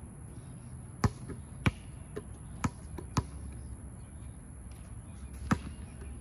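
A basketball bouncing on a hard outdoor court: five sharp bounces about half a second apart in the first half, then a pause and one more bounce near the end.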